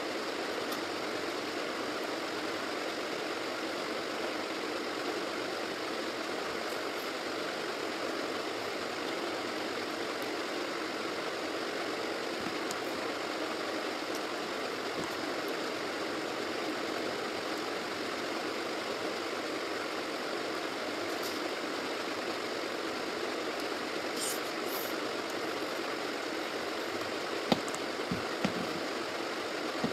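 Steady, even background hiss with no speech, and a few short clicks near the end.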